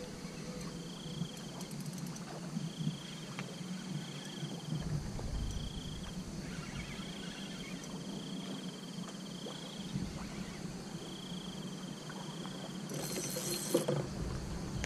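An insect chirping from the riverbank in repeated high, steady-pitched trills, each lasting about a second, coming every second or two. Near the end there is a brief scratchy burst.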